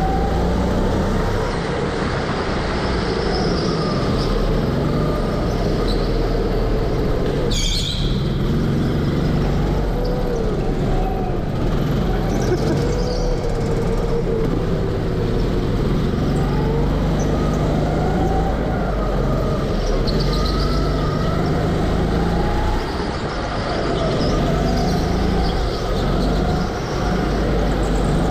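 Go-karts running on a track at speed, their motor pitch rising and falling again and again as they accelerate and slow for corners. A single sharp knock comes about eight seconds in.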